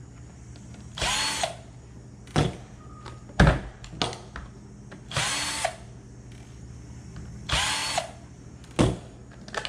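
Cordless drill-driver run in three short spurts of about half a second each, backing out the end-cap screws on a tow light bar. Between spurts there are a few sharp clicks and knocks of handling, the loudest about three and a half seconds in.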